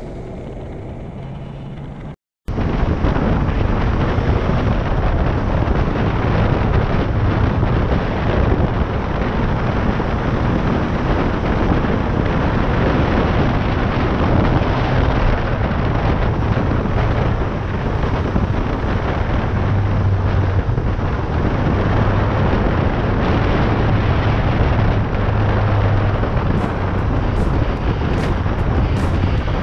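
Wind buffeting the microphone of a camera on a moving Suzuki GSX 750 motorcycle, a loud, steady rush with the inline-four engine's low drone underneath. It cuts in abruptly after a brief silence about two seconds in, following the tail of music.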